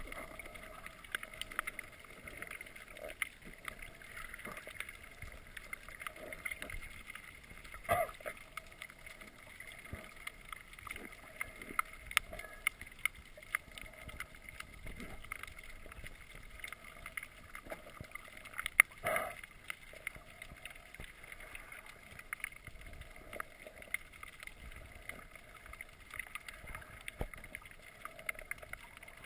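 Underwater sound through a GoPro's waterproof housing: a steady muffled hum with frequent small clicks and crackles. Two louder knocks come about 8 and 19 seconds in.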